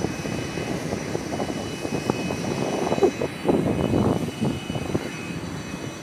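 Boeing 747 jet engines running on the ground: a dense rushing noise that swells unevenly, with gusty flutter, loudest around the middle.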